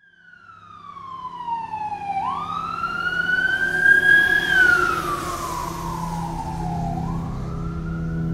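A wailing siren fading in, its pitch sweeping slowly down and back up in long cycles, over a low steady drone.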